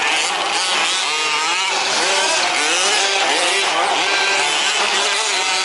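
Several 1/5-scale RC trucks' small two-stroke petrol engines running together, their pitch rising and falling as they rev up and ease off around the track.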